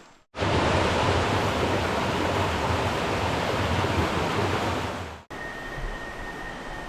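Rushing water: a loud, steady rush of falling or flowing water that starts and stops abruptly at cuts. After it comes a quieter stretch with a faint, steady high-pitched tone.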